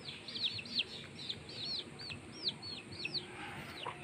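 Domestic chicks peeping as they feed, a steady run of short high chirps, about three or four a second, each rising and falling in pitch.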